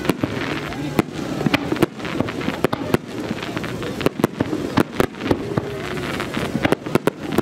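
Fireworks display: aerial shells bursting in a fast, irregular run of sharp bangs, about two a second, over a continuous rumble and crackle.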